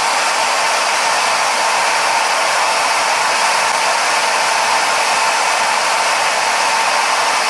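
Handheld wood router's brushed universal motor running steadily at full speed with no cut, a loud even rush of fan air with a steady high whine, measuring about 95 and a half dBA at close range.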